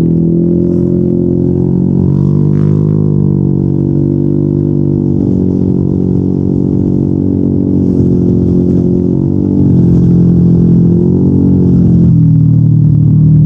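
Yamaha NMAX 155 single-cylinder scooter engine through a Yoshimura RS2 aftermarket exhaust, running at steady cruising throttle with a deep, even drone. The pitch rises and falls a little with small throttle changes and eases off near the end.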